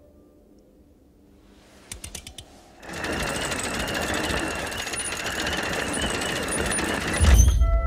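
Fast mechanical rattling from a metal mechanism, with a steady whine running through it. It starts abruptly about three seconds in, after a few clicks, and ends in a low thud near the end.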